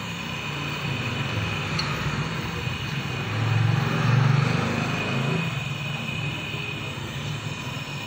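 Gas brazing torch flame burning steadily as a copper pipe joint on a refrigerator compressor is brazed. It grows louder for about a second around the middle.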